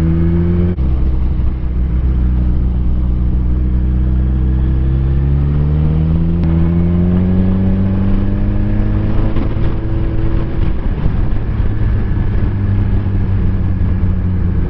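Suzuki Hayabusa's inline-four engine pulling on the road: its note drops suddenly under a second in, then climbs steadily for several seconds under acceleration and holds steady.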